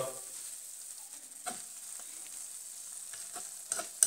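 Potato and Montasio cheese frico sizzling in a frying pan, with a slotted metal spatula scraping around it to loosen the crust from the pan; a few short clicks of the spatula against the pan, most of them near the end.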